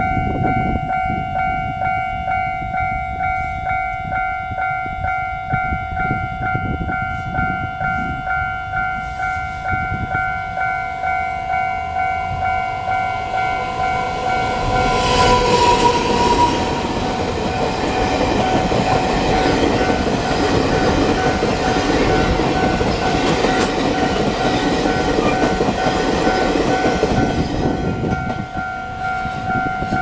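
Level-crossing warning bell ringing in steady, even pulses. About fifteen seconds in, a train horn sounds briefly. A train hauled by an electric locomotive then passes over the crossing, its wheels and cars running by for about twelve seconds while the bell keeps ringing.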